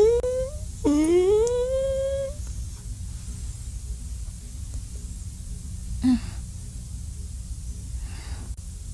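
Two wordless, drawn-out vocal moans, each rising in pitch, in the first two seconds, then a short soft breath-like sound about six seconds in, over a steady low hum.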